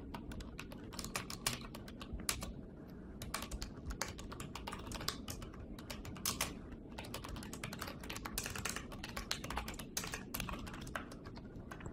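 Typing on a computer keyboard: quiet, quick, irregular runs of keystrokes.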